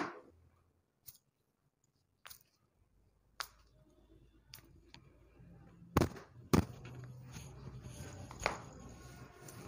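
Scattered sharp clicks and soft rustling handling sounds, with a low steady hum coming in a few seconds in. The two loudest clicks fall about six seconds in, half a second apart.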